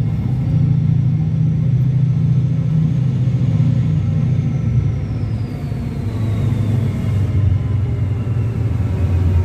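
Class 68 diesel locomotive under power, propelling its coaches out of the station: a deep, steady engine drone with the rolling of the coaches, growing louder near the end as the locomotive draws closer. A faint high whine slides down in pitch midway.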